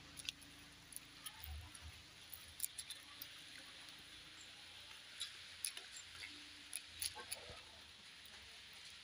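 Faint sounds of eating rice, dal and greens by hand: scattered small clicks and smacks, several at a time, over a quiet steady hiss.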